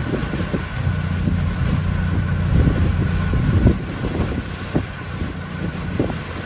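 Hurricane eyewall winds buffeting the microphone in heavy low gusts, strongest from about one second in until nearly four seconds in.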